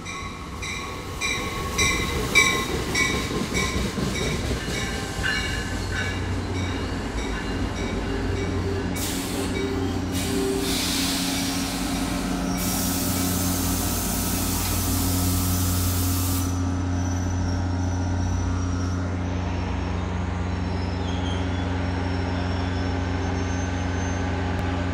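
Metro-North commuter train pulling into an underground station: a bell rings steadily as it rolls in, a long loud hiss of air comes from about ten to sixteen seconds, and a steady low engine hum runs under it as the train slows to a stop.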